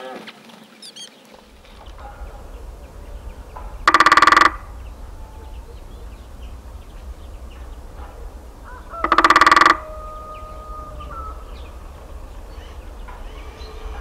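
A large bird gives two loud, harsh, honking calls about five seconds apart, each about half a second long, over a low steady rumble.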